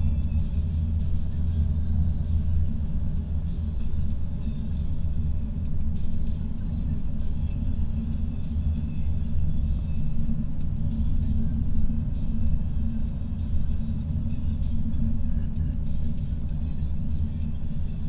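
Steady low rumble of a car driving at highway speed, heard from inside the cabin: engine and tyre noise on the road.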